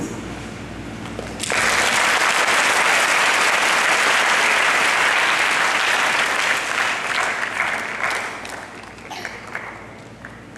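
Audience applauding, starting abruptly about a second and a half in, holding steady, then thinning into scattered claps and fading near the end.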